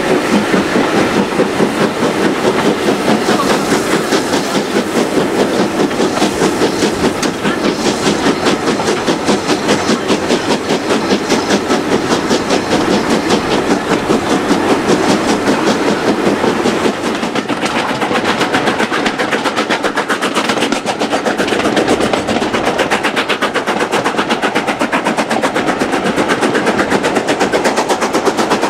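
Steam locomotive hauling the train, heard from a coach behind it: a quick, even exhaust beat as it works, with the train's wheels clattering along the rails.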